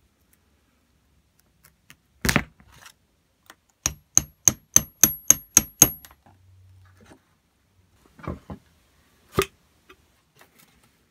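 Hammer tapping a pin punch against the lever pivot pin of an old steel grease gun. One heavier blow comes first, then a quick run of eight ringing metallic taps at about four a second, and two duller knocks near the end.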